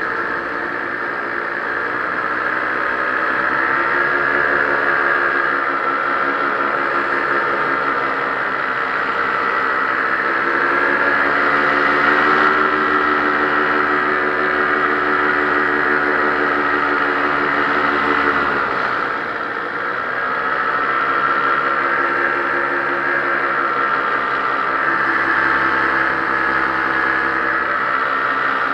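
Paramotor engine and propeller running steadily in flight, heard close from the pilot's own camera. About two-thirds of the way through the pitch sags briefly as the throttle eases, then picks back up.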